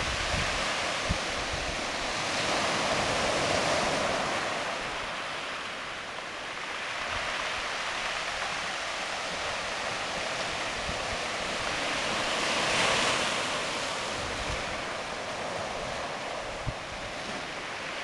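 Surf breaking and washing up a beach of round pebbles, a steady rush that swells twice, about three seconds in and again near thirteen seconds.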